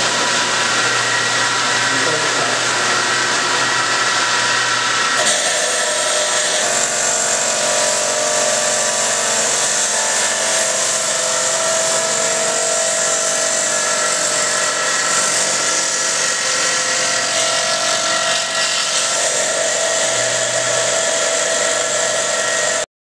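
Water-cooled Felker diamond-bladed rock trim saw running loud and steady, grinding through a slab of Gore Mountain garnet amphibolite. About five seconds in the sound turns harsher and a steady whine joins it as the blade works into the stone. It stops abruptly near the end.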